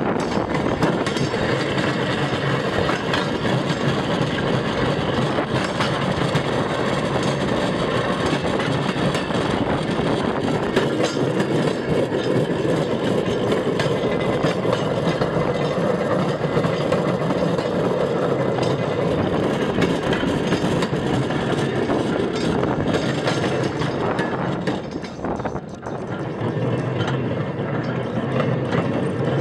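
Hand-pumped rail cart rolling along the track: its steel wheels rattle and click steadily on the rails. The noise drops briefly about four seconds before the end, then picks up again.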